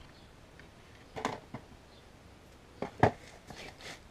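A few short knocks and clinks of small hard objects being handled, such as tools or screws, with a clatter about a second in and a sharper knock at about three seconds.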